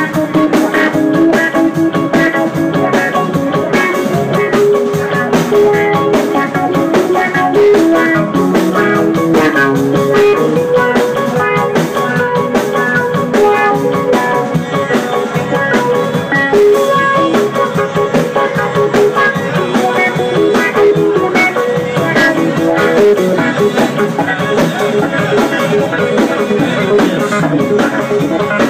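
Live band playing: electric guitar, drums and keyboard, with a melodic line of short notes running through.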